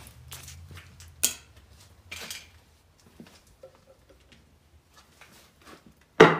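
Handling noises on a workbench as gloves and tools are set out: rustling and light clicks, a sharp click about a second in, and a louder knock near the end.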